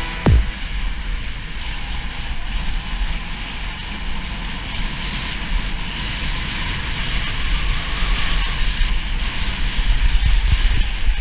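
Wind buffeting a moving camera's microphone in a steady low rumble, over the continuous hiss of sliding fast down packed snow on a ski run. A short sharp thump sounds just after the start.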